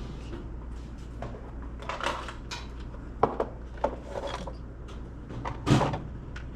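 Small objects handled on a workbench: scattered clicks and knocks with short rustling scrapes, the loudest scrape about two-thirds of the way through, as when a box of tools is picked up and rummaged through. A steady low hum underneath.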